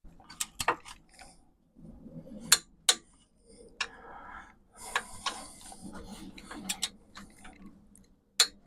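Metal-on-metal clinks and taps from tools and steel suspension parts being handled, with stretches of rasping rubbing as emery paper is worked over the steel bush housing to clean it up.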